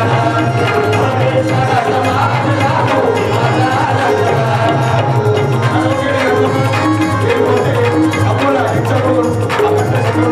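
Live Indian folk-style band music with hand drums keeping a steady rhythm under a repeating melody, with no clear singing.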